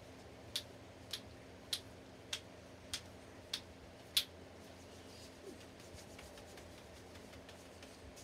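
Seven faint, sharp clicks at an even pace of a little under two a second, ending about four seconds in.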